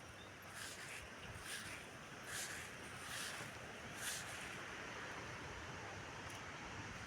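Strong wind rustling foliage, faint and steady, with about five soft gusts of rustling in the first four seconds.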